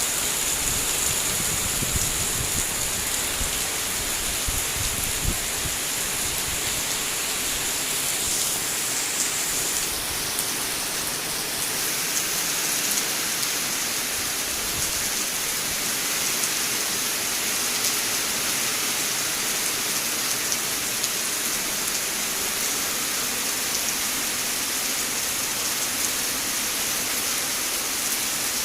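Heavy rain pouring down in a steady hiss, with a low rumble during the first several seconds.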